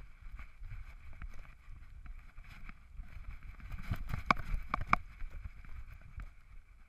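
Handling noise from a GoPro Hero 3 strapped to a running dog's back as it bounds through snow: irregular thumps and rubbing from the harness with the dog's strides, with a few sharp clicks about four to five seconds in, fading near the end.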